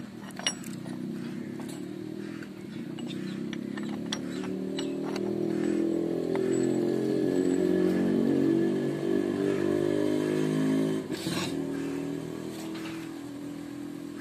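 A vehicle engine running at a steady pitch, getting louder over several seconds and then falling away about eleven seconds in; it is not the scooter under repair, whose gear case lies open. A few sharp metal clicks in the first couple of seconds, and a knock about eleven seconds in.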